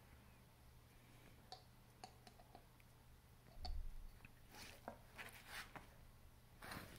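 Near silence in a small room, broken by a few faint clicks, a soft low thump a little past halfway through as the chew bone is handled on the rug, then several short hissy rustles.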